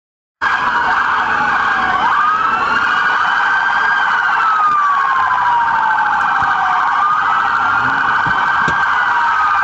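Police car sirens sounding together: a wail that slowly rises and falls over a few seconds, layered over a faster warbling siren, heard from inside a pursuing patrol car. The sound cuts in suddenly about half a second in.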